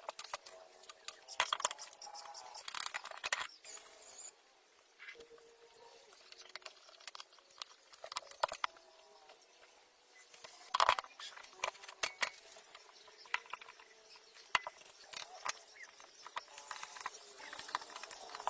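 Irregular clicks and light metallic clinks of small parts and tools being handled, with faint voices in the background.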